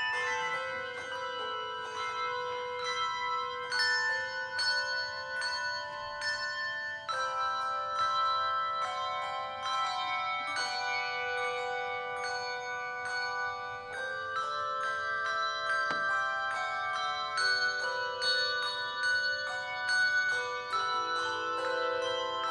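Handbell choir playing a piece of music: many bells struck in chords, their tones ringing on and overlapping.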